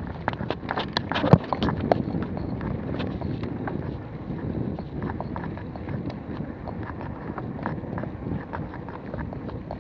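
Mountain bike rolling down a rough dirt trail: tyres crunching over dirt and stones, with the bike rattling and knocking over bumps. The knocks come thick and sharp for the first couple of seconds, then the ride settles into a steadier rumble with scattered clicks.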